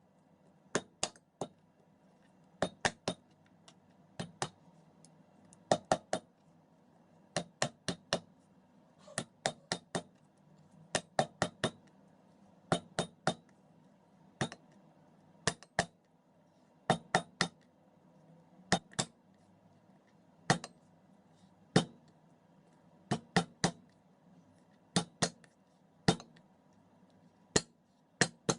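Ginger being crushed: sharp, hard knocks in quick groups of two or three, repeating every second or two.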